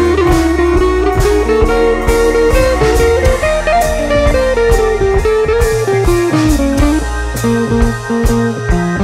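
Blues-style electric guitar music with a gliding melody over a steady drum beat.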